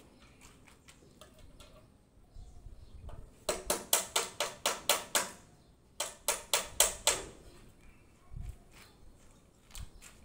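Rapid hammer blows ringing on steel column formwork, knocking the shuttering loose from freshly set concrete pillars. They come in two quick runs of about nine and six blows, roughly five a second, starting about three and a half seconds in. Lighter scattered knocks and clicks come before and after.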